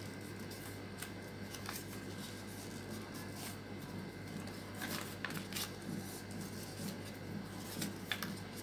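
Thin coloured paper being fan-folded and creased by hand: faint rustling with a few short crisp snaps as folds are pressed, over a low steady hum.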